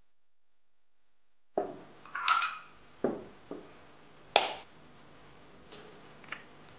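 An egg being cracked by tapping its shell with a fork: about five sharp knocks starting about a second and a half in, the loudest a little after four seconds, then a few faint ticks as the shell is pulled apart over a porcelain bowl.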